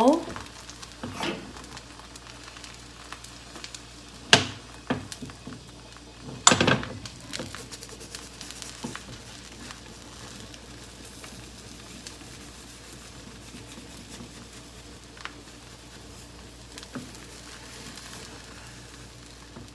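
Thin beaten-egg omelette (kinshi tamago) sizzling gently in an oiled frying pan over low heat. A few sharp knocks against the pan come through, the loudest about four and six and a half seconds in.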